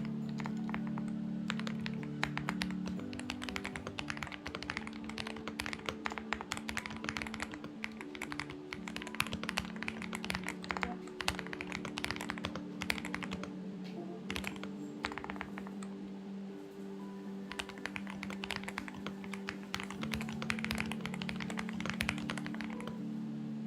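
Typing on a Xinmeng X98 mechanical keyboard, dense flurries of key clicks with short pauses, over background music with held low notes.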